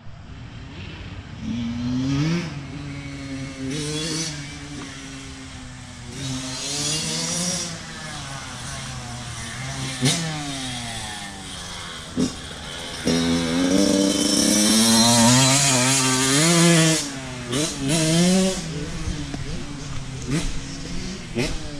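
Honda CR85R 85cc two-stroke dirt bike fitted with an FMF exhaust, revving up again and again and dropping back between shifts as it rides the track. It is loudest about two thirds of the way through.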